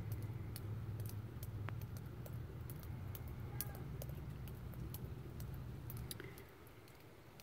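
Faint, steady low background hum with scattered light clicks; the hum drops away about six seconds in.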